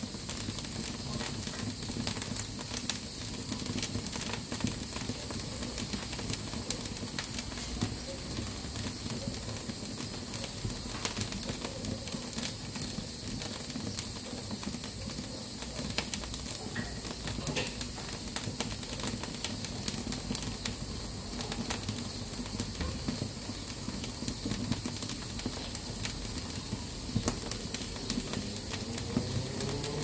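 Aluminium pressure cooker on a wood-burning stove hissing steadily as it vents steam through its weighted valve, a sign that it is up to pressure. Wood fire in the firebox crackling with short sharp snaps over the hiss.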